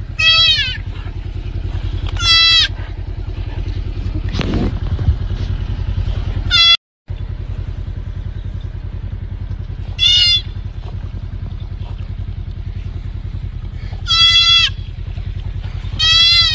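A deer fawn bleating: short, high-pitched, wavering distress calls, about six of them at intervals of two to four seconds, over a steady low rumble. The sound cuts out briefly about seven seconds in.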